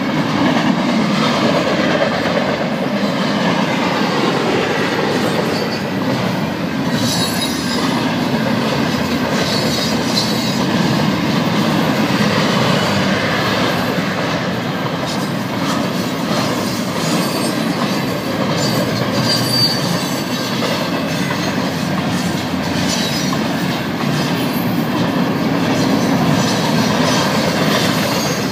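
Double-stack intermodal container well cars of a long freight train rolling past, a steady rumble and clatter of steel wheels on rail, with a few brief high-pitched squeaks.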